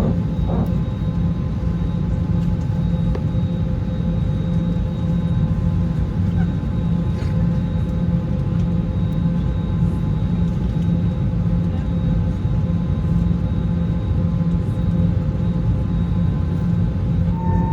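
Steady cabin noise inside an Airbus A321neo: a loud, even rumble with a faint, steady whine above it.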